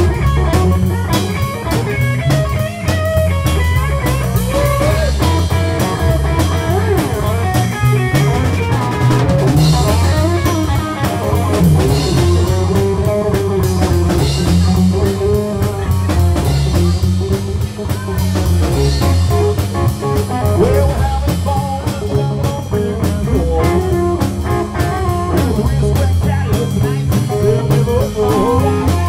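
Live rock band playing: electric guitars, bass and a drum kit with cymbals, loud and continuous.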